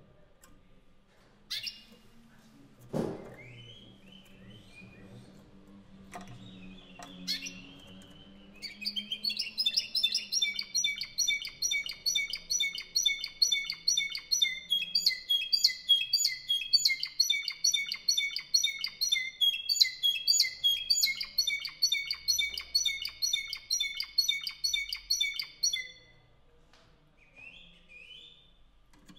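Spanish singing canary (Canario Cantor Español) in full song: after a few scattered call notes and a sharp knock about three seconds in, it sings one long unbroken run of rapidly repeated high notes and trills lasting about seventeen seconds. A few short calls follow.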